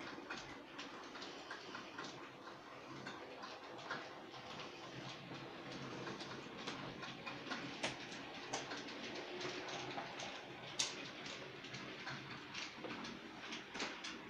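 Model trains running on a layout: a light, irregular clicking of small wheels over the rail joints, with a couple of sharper clicks about eight and eleven seconds in.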